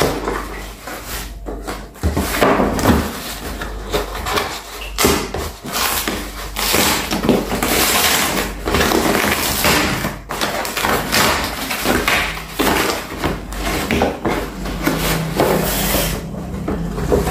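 Cardboard mailer being cut and torn open by hand: a run of irregular scraping, ripping and rustling of cardboard, with knocks as the parcel is handled on the table.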